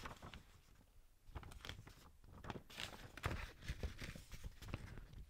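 Irregular rustling and crackling: a quick, uneven run of small clicks and scrapes that grows busier after about a second.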